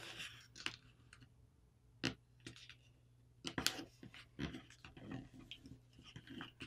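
A sheet of paper being folded and creased by hand: faint, scattered crinkles and crisp clicks as the folds are pressed flat, with a small cluster about three and a half seconds in.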